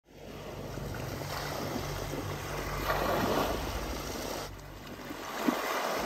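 Sea waves washing over a rocky shore, with wind on the microphone and a steady low hum underneath.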